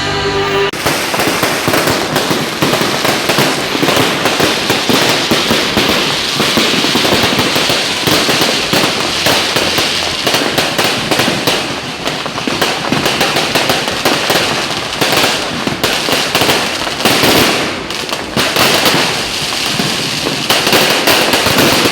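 Large fireworks going off at close range: a loud, dense, near-continuous crackle of rapid cracks and pops.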